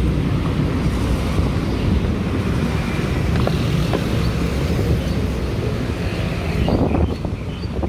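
Busy city street traffic: motor vehicles running past in a steady, loud wash of engine and tyre noise, with wind on the microphone. A few short clicks are heard about three and a half, four and seven seconds in.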